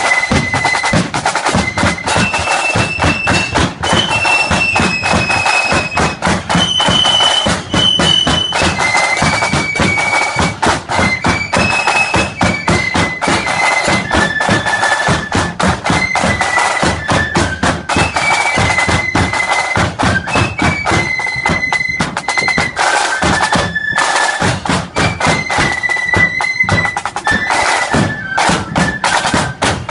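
Marching flute band playing a tune in unison on flutes, the high melody carried over rapid snare drumming and the beat of a big bass drum.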